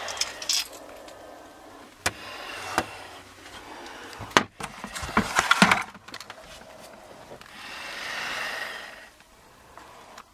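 Rustling and scraping with sharp clicks, and a run of loud crackling clatter a little before the middle, from handling foil flex duct and a sheet-metal plenum.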